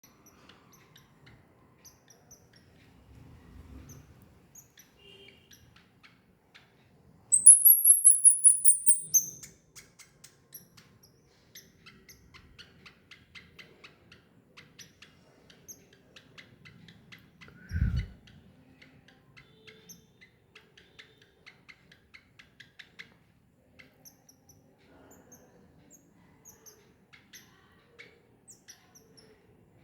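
Baby squirrel squeaking: about seven seconds in comes a loud two-second run of rapid, very high-pitched chirps, around six a second. Faint short squeaks and ticks come and go around it, and there is a single low thump a little past halfway.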